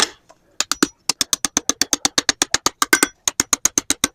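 Blacksmith's hammer striking hot iron flat stock on an anvil: a fast, even run of light blows, about six or seven a second, after a couple of single strikes, flattening the snail's rolled shell curl against the anvil face.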